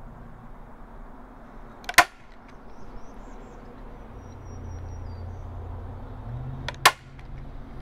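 A stapler driving staples through watercolor paper into a Gatorboard foam board: two sharp snaps, one about two seconds in and another about five seconds later.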